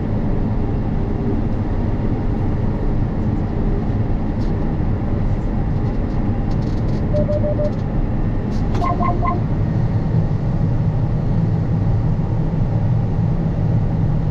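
Combine harvester running steadily with a low, even drone. A short electronic tone sounds about seven seconds in, followed by three quick beeps about nine seconds in.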